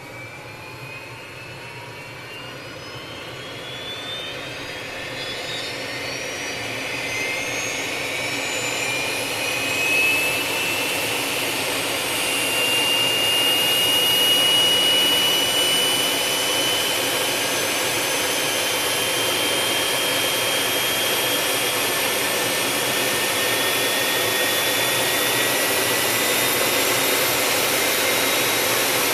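Learjet's second engine starting, heard from outside: a turbine whine climbing in pitch and growing louder over about fifteen seconds as the engine spools up, then settling into a steady high whine with rushing jet noise at idle.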